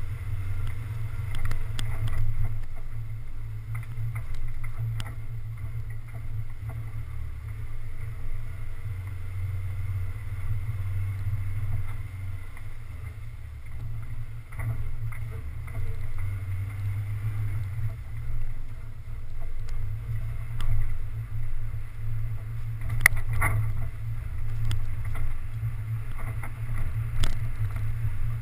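Low, steady rumble of a 4x4 driving slowly along a rough dirt trail, picked up by a GoPro mounted on the vehicle, with scattered knocks and rattles from bumps and a couple of sharper clacks near the end.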